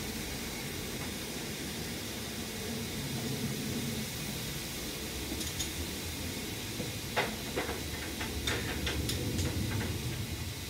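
Hot freshly cast metal ingots sitting on a block of ice, giving a steady hiss of steam. From about seven seconds in come a run of sharp cracks and pops as the ice cracks under the heat.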